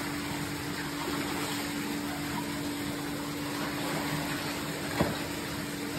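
Swimming-pool water splashing and sloshing as people wade and one swims under the surface, over a steady low hum. A single sharp slap about five seconds in.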